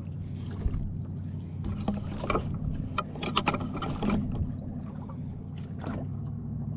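Steady low hum of a boat motor, with scattered knocks and clatter of gear being handled in the boat.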